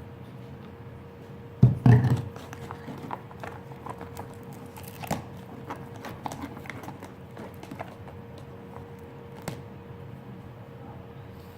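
Fluffy slime being mixed and worked: scattered short wet clicks and squelches, with two heavier thumps about two seconds in.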